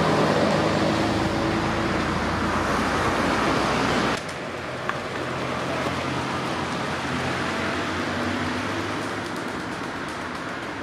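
Scania-Vabis Torpedo truck's diesel engine running as it drives off, with tyre and road noise. About four seconds in the sound drops suddenly, and a quieter engine hum carries on and slowly fades.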